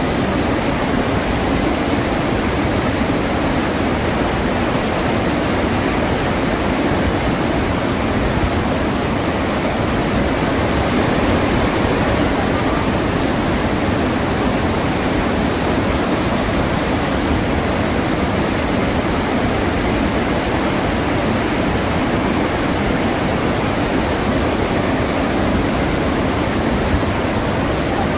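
Iguazu Falls: a large waterfall pouring over cliffs in a loud, steady, unbroken rush of water.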